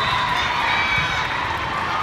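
Crowd hubbub of spectators and players' voices calling out, echoing in a large indoor sports hall.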